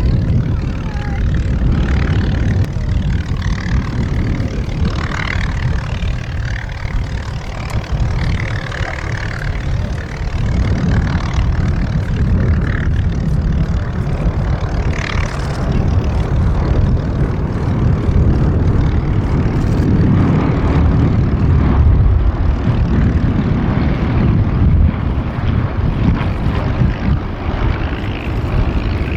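Hawker Hurricane fighters flying overhead, their Rolls-Royce Merlin V12 piston engines and propellers giving a loud, steady drone.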